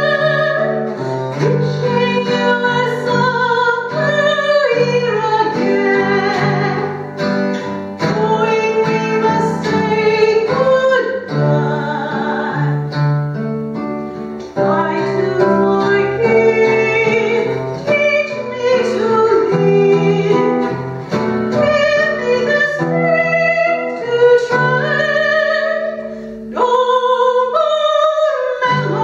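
A woman singing a slow ballad with acoustic guitar accompaniment.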